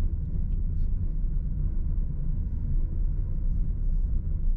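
Steady low rumble of a car driving, the engine and road noise heard from inside the cabin.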